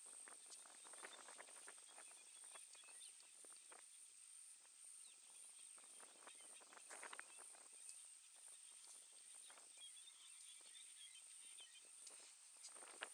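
Faint rustling and crackling of elephants shuffling their feet through dry grass and brush, over a steady thin high whine, with a few faint chirps about ten seconds in.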